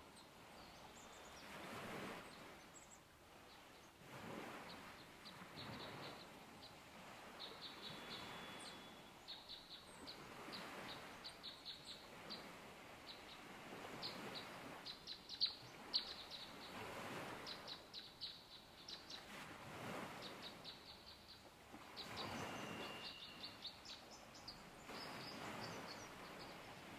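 Faint footsteps on a dirt trail, a soft crunch roughly every two seconds, under small birds chirping in quick runs of short high notes, with a couple of brief whistled notes.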